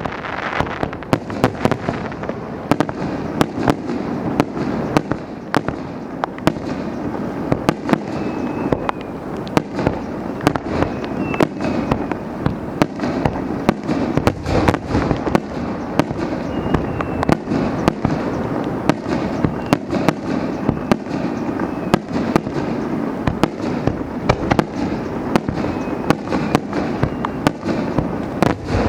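Fireworks finale barrage: aerial shells bursting in rapid, overlapping succession, many sharp bangs over a continuous rumble.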